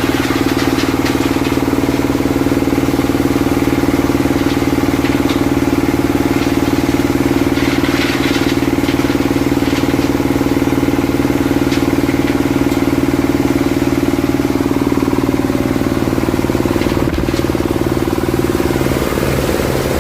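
Waste-sorting machine driven by a 30 HP diesel engine, running steadily, with some clattering about eight seconds in.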